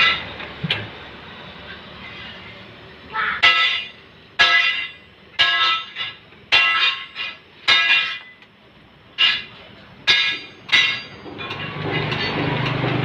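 A Kubota diesel engine on a grass chopper being started: about eight short, high squealing bursts in a row. Near the end the engine settles into steady running.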